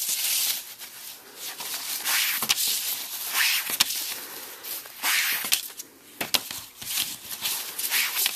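Denim cloth rubbed along the dyed edge of a leather strap: about five short hissing strokes with small clicks between them. The rubbing slicks and smooths the edges after the edge dye has set.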